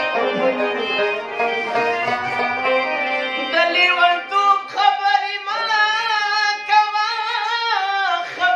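A man sings a ghazal over sustained instrumental accompaniment. His voice comes in about halfway through, in long wavering, ornamented notes.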